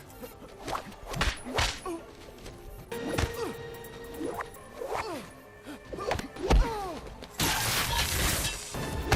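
Movie fight-scene sound effects: punches and kicks landing as sharp thwacks about a second apart, with grunts and short cries between them, over background music. Near the end a loud crash lasts about a second.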